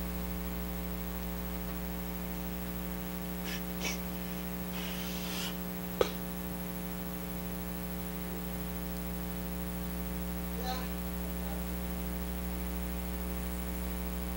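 Steady electrical mains hum with many overtones, with one sharp click about six seconds in and a few faint brief rustles.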